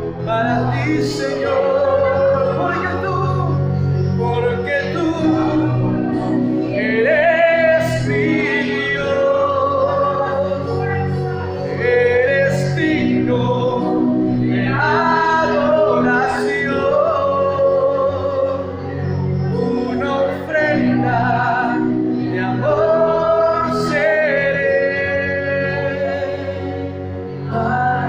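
Spanish-language Christian worship song: a voice sings long held, wavering notes over steady accompaniment.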